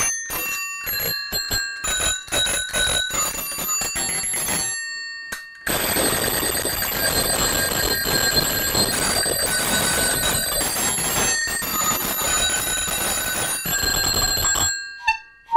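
A wearable home-made instrument of many bicycle bells ringing: single strikes for the first few seconds, then many bells rung rapidly together in one dense, continuous ringing that stops abruptly just before the end.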